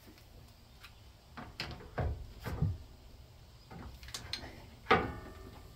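Metal clunks and knocks from an air impact wrench and socket being handled and set onto a steering bolt, the wrench itself not running. Near the end comes one sharp metallic clank with a short ring, the loudest sound.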